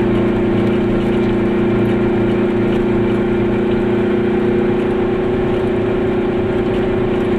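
Goggomobil's small two-stroke twin engine running at a steady cruise, one even, unchanging drone, heard from inside the small car.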